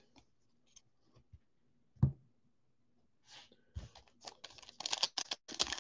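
Trading cards and a card pack handled: a soft tap about two seconds in, then light clicking and crinkling of a pack wrapper, growing busier near the end as the next pack is opened.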